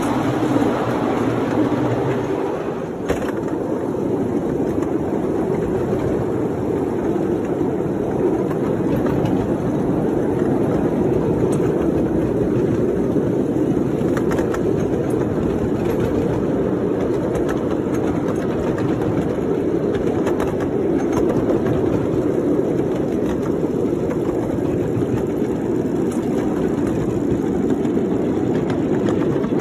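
Ride-on miniature railway train rolling along its track: a steady rumble of wheels on rail. It sounds fuller and brighter for the first few seconds while the train is inside a corrugated-metal culvert.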